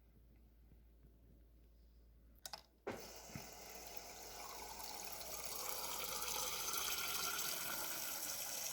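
Refrigerator water dispenser starting with a click about three seconds in, then water running steadily and growing louder; this is flushing a newly fitted water filter until the water runs clear.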